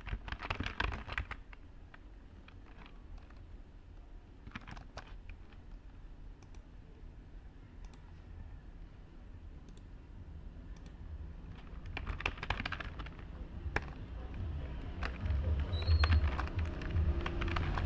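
Computer keyboard typing in bursts of quick key clicks, over a low background rumble that grows louder near the end.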